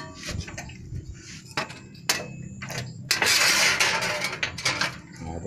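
Thin galvanised sheet-steel plate being handled and set on a homemade steel bending brake: light clanks and taps of the plate against the brake's steel, then, about three seconds in, a second-long scraping rattle as the plate slides across it. A low steady hum runs underneath.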